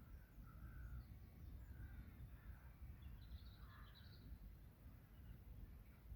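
Faint, scattered bird calls over a steady low rumble of background noise at a pond.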